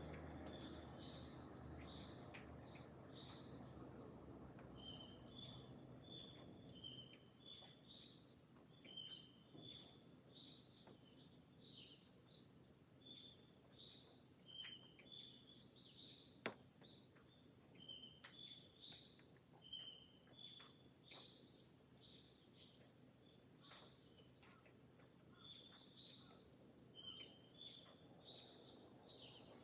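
Small birds chirping in quick, repeated short calls, several a second, with one sharp click about sixteen seconds in. A low background rumble fades out over the first seven seconds.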